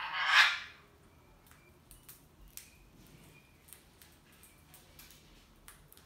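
Indian ringneck parakeets: one short harsh squawk right at the start, then soft clicks of a beak nibbling food and a few faint short chirps.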